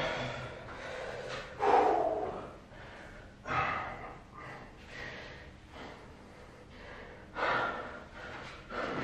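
A man breathing hard and gasping, out of breath from strenuous exercise. There are about five loud breaths, with a longer quiet stretch in the middle.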